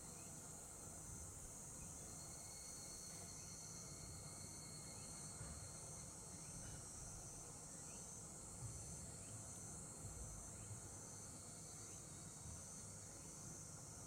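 Faint, steady high-pitched chirring of insects, over a low background rumble.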